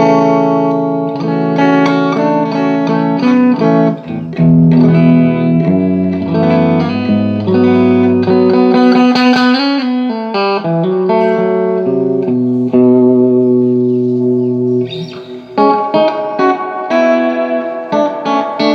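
Electric guitar played through a Carr Lincoln valve amp fitted with a new set of JJ EL84 power valves, biased about 15% cooler than the factory setting. Held chords alternate with quicker runs of single notes.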